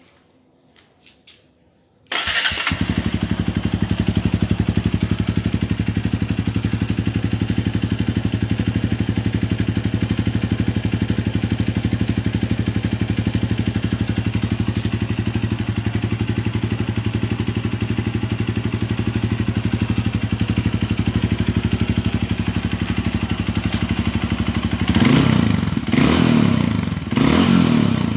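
Honda CRF150L single-cylinder four-stroke engine starting about two seconds in and idling steadily with a soft, mellow note through its stock muffler, hollowed out by having its internal pipes and baffles removed. The throttle is blipped twice near the end.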